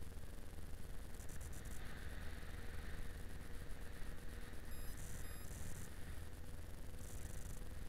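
Low, muffled, steady rumble of a Yamaha XJ6 Diversion motorcycle riding on the road: engine and wind noise picked up by a camera mounted on the bike.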